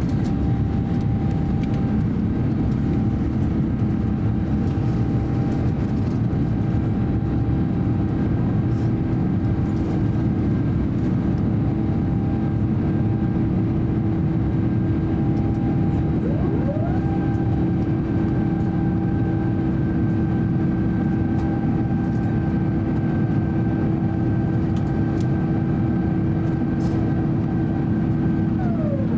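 Steady cabin noise of an Airbus A350-900 climbing out after takeoff: the even roar of its Rolls-Royce Trent XWB engines and the airflow over the fuselage, with a low steady drone. A fainter, higher engine tone slides up about halfway through and slides back down near the end.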